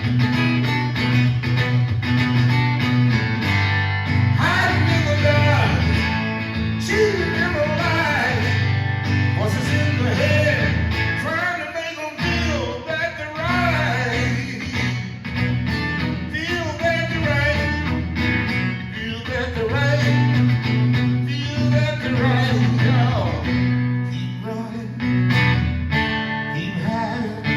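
Live blues instrumental break: a guitar plays a lead line full of bent, wavering notes over a steady low accompaniment.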